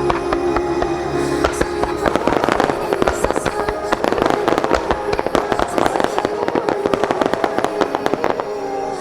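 Fireworks display: a dense run of rapid firework bursts and crackles, many per second, starting about a second and a half in and thinning out near the end, over the show's music.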